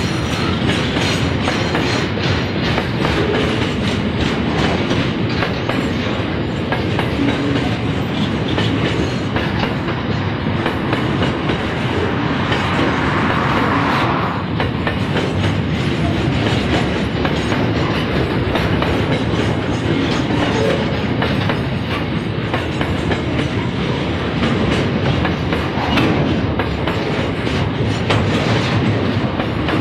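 Container-laden freight wagons rolling slowly past, their wheels clicking steadily over the rail joints over a continuous rumble.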